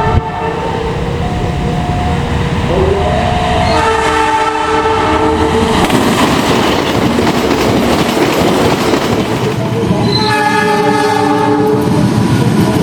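Diesel locomotive's multi-tone horn sounding the semboyan 35 signal in several chord-like blasts: a longer one about four seconds in and another near the end. Between them the passing train rumbles and rattles on the rails.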